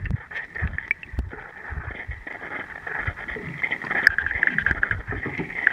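Muffled underwater sound from a camera held below the surface: water sloshing and rushing, with irregular low knocks throughout.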